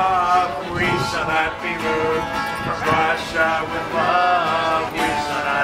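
Voices singing a song to a strummed acoustic guitar.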